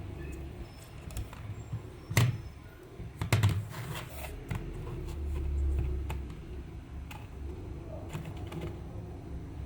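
A few sharp clicks and knocks over a low steady rumble: one about two seconds in, then a quick cluster of several about a second later.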